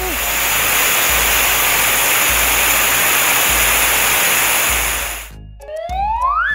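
Car-wash water-spray sound effect: a loud, steady rush of spraying water for about five seconds that cuts off suddenly, over background music with a bass beat. Near the end comes a short rising whistle tone.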